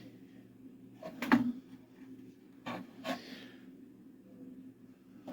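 A few short knocks and a brief scrape from handling the Mandalorian helmet's ear cap parts, the loudest knock about a second in, over a faint steady hum.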